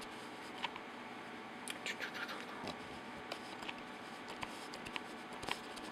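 Faint handling noise: scattered light clicks and scratches as a small circuit board is moved about close to the microphone, over a steady hiss.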